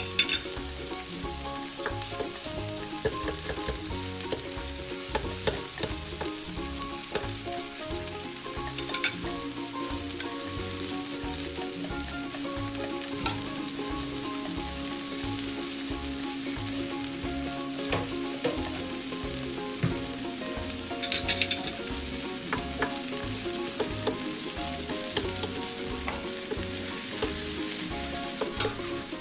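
Food sizzling as it fries in a pan while being stirred, with scattered clicks of the utensil against the pan and a quick cluster of them about two-thirds of the way through.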